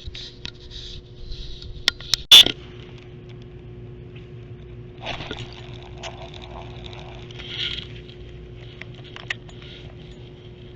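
Rustling and scraping handling noise with a few sharp clicks about two seconds in and one loud knock just after, over a faint steady hum.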